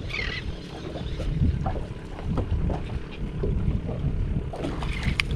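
Wind rumbling on the microphone over water lapping at a small boat's hull, with scattered light knocks and one sharp click about five seconds in.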